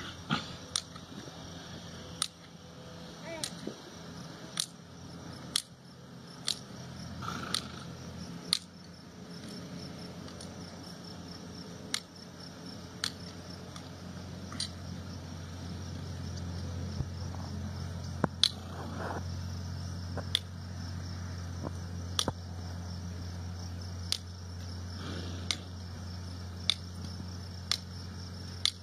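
Sharp single clicks, roughly one a second and irregularly spaced, as hoof nippers snap through the hind hoof wall during a trim. A steady low hum runs underneath and grows stronger from about halfway.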